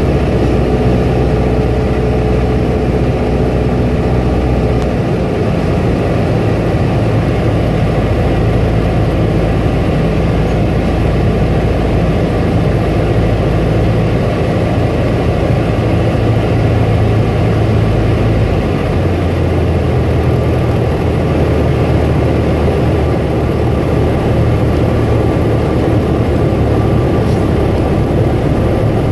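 Single-engine light aircraft's piston engine and propeller, heard from inside the cockpit, running steadily on approach to land. Its low hum changes pitch about five seconds in and again near nineteen seconds.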